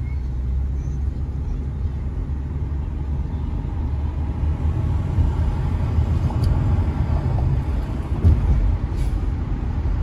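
Car being driven: a steady low rumble of road and engine noise.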